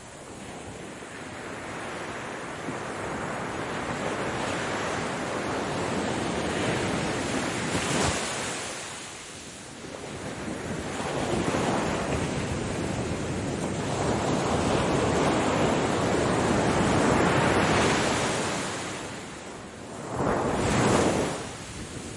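Ocean surf: waves breaking and washing up the shore one after another, the noise swelling and ebbing. The longest swell builds through the middle, and a shorter, sharper wave breaks near the end.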